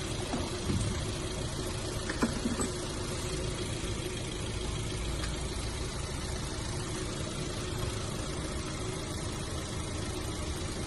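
Car engine idling steadily, with a few light clicks or knocks in the first three seconds.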